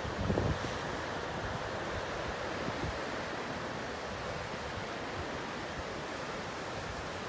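A steady, even rushing noise, with a few brief low rumbles in the first half second.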